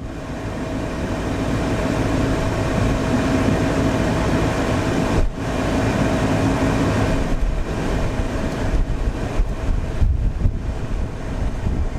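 Steady rushing noise with a low hum from the running car. In the second half it gives way to irregular gusts of wind buffeting the microphone.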